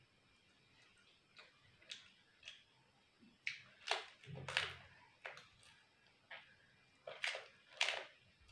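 Close-miked crunching of a crisp fried papad being bitten and chewed: sharp brittle cracks, loudest in a cluster about four seconds in and again near the end, with lighter chewing crunches between.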